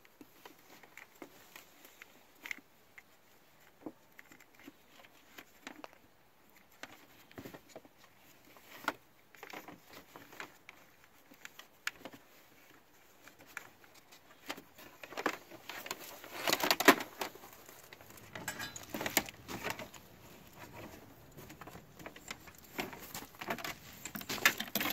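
Hands handling a wire and the ATV's plastic body panels: scattered small clicks and taps, with a stretch of louder rustling and crunching about halfway through.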